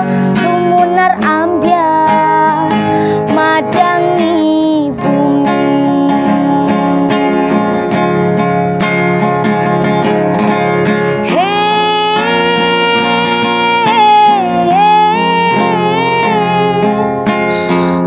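A woman singing a slow Javanese ballad to a picked acoustic guitar. Short sung phrases and plucked notes come first; past the middle she holds long, wavering notes.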